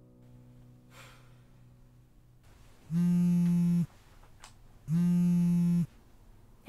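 Telephone ringing twice: a buzzy electronic ring about a second long each time, the two rings a second apart, as a call comes through. A piano note fades out just before.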